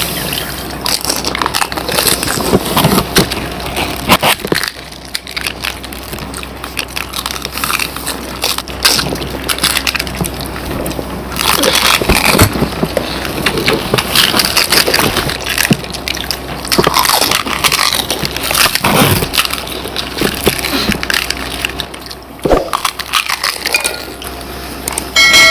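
Close-up crunching of crisp fuchka (pani puri) shells being cracked open and bitten, with chewing, in dense irregular bursts.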